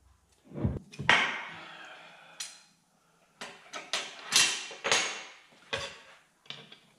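Steel parts of a 1966 Corvette differential knocking and clinking together as the carrier is taken apart: a sharp clank about a second in that rings on, then a run of lighter metal clinks and knocks.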